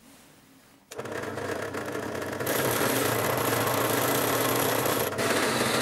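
Bench drill press switched on about a second in, its motor spinning up and then running steadily with a low hum. A high whine joins about halfway through, with a short dip near the end, as the countersink is brought to the steel plate.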